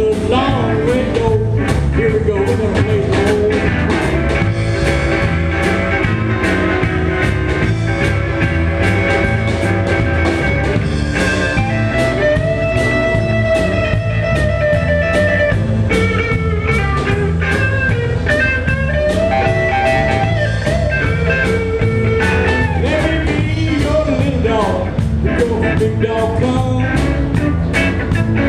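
Live rock band playing a blues number: two electric guitars, an electric bass and a drum kit, with the drums keeping a steady beat and a lead guitar line bending over the top.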